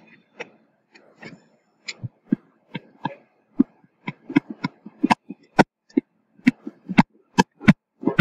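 Stylus tapping and clicking on a tablet screen while handwriting: irregular sharp clicks, soft and sparse at first, then louder and coming two or three a second from about five seconds in.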